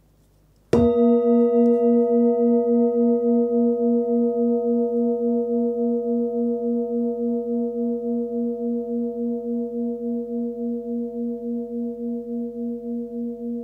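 A 19 cm Nepalese singing bowl is struck once with a padded mallet about a second in, then rings on with a low tone near 236 Hz (A sharp) and higher overtones. The low tone wavers about three times a second and slowly fades.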